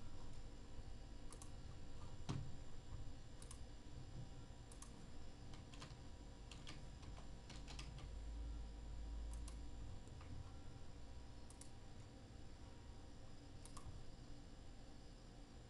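Faint, scattered clicks of a computer mouse and keyboard, a dozen or so at irregular intervals, over a low steady hum.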